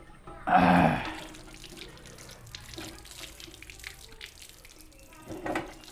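Running water splashing and dripping, with a louder gush about half a second in and another swell near the end.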